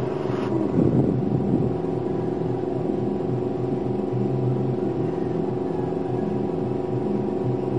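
Airbrush air compressor running with a steady low hum. A short hiss of air from the airbrush comes at the very start, and a brief louder wavering rumble about a second in.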